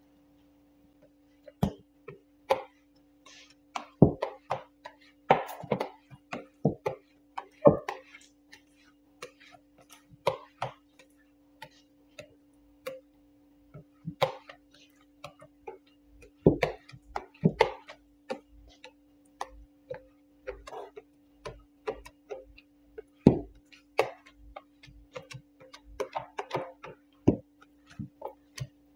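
Irregular taps, clicks and light knocks from hands and a small squeegee working clear paint protection film down onto a wooden bench top, with a few sharper knocks. A steady low hum sits underneath throughout.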